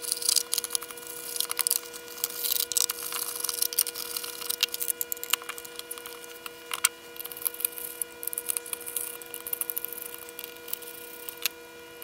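Hard plastic case of a benchtop signal generator being handled and pulled apart: irregular clicks, knocks and scrapes of the plastic shell. A faint, steady whine of several pitches runs underneath.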